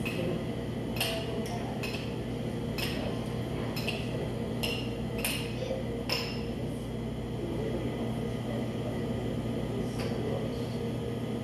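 Metal ice cream spades striking and scraping on a frozen granite stone slab as ice cream is chopped and folded. The result is a series of sharp clinks with a brief ring, most in the first six seconds and one more near the end.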